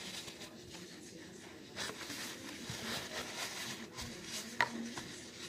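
Paper towel rustling and rubbing as it is folded and handled, with light handling noise and one sharp click a little past the middle.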